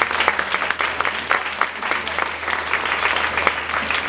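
A room of guests applauding, with many hands clapping in a dense, uneven patter.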